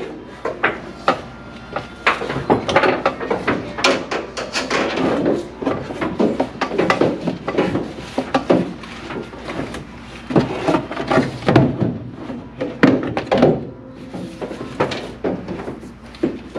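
Irregular knocks, clunks and rustling of a heavy battery cable being handled and fed through the sheet-metal trunk of a car.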